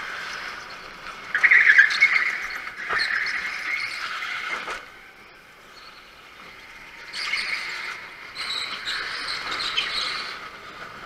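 Go-kart lapping a smooth indoor track, heard from on board: tyres squealing through the corners, with mechanical rattle. The sound is loudest about a second and a half in, eases off in the middle and swells again in the second half.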